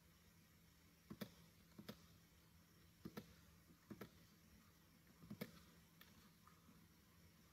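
Faint computer mouse clicks, about five of them a second or so apart, each a quick press-and-release pair, over a low steady hum.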